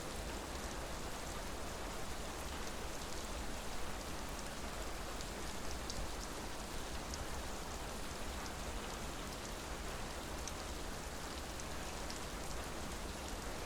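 Steady rain falling: a continuous even hiss with scattered sharp ticks of individual drops striking.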